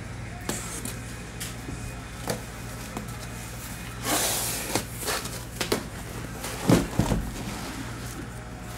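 Sealed cardboard shipping case being cut open and its flaps pulled apart: scattered clicks and rustles of cardboard and tape, a scraping rasp about four seconds in, and a couple of heavy thumps just before seven seconds as the case is handled.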